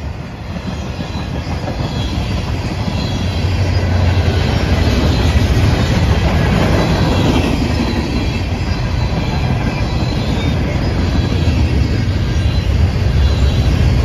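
Freight train cars (tank cars, coil cars and gondolas) rolling past close by: the steady rumble and clatter of steel wheels on the rails. It grows louder over the first few seconds, then holds steady.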